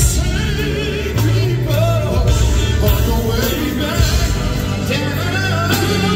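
Male gospel vocal group singing live with a band, the voices held and wavering with vibrato over a steady bass line and drums.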